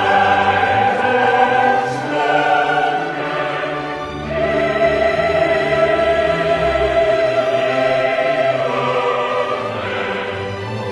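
Slow classical music, voices singing long held notes over an orchestra, the chord shifting every few seconds.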